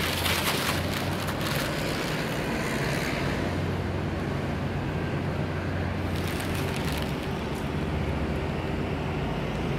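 A steady low hum under an even hiss, with brief rustling of thread and packaging being handled near the start and again about six seconds in.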